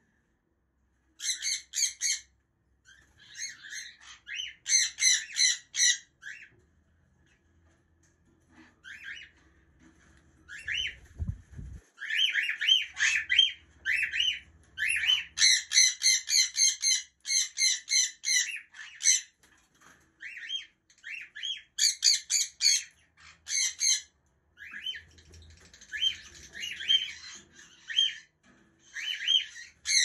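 Pet parrots squawking: runs of harsh, quickly repeated calls lasting a second or several at a time, broken by short quiet gaps.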